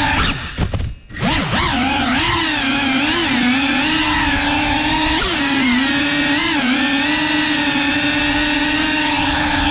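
Cinewhoop FPV drone's motors and ducted propellers whining, the pitch wavering up and down with the throttle. About half a second in the whine dips sharply and nearly drops out, then comes back about a second in.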